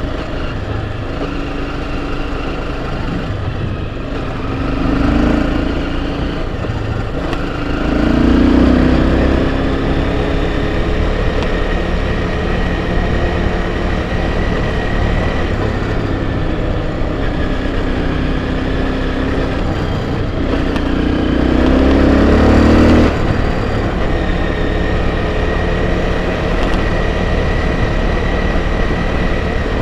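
Enduro motorcycle engine running under way, revving up and easing off. It revs harder about five and eight seconds in, and again around twenty-two seconds, where it drops off sharply. A steady rough rush of wind and riding noise runs under it.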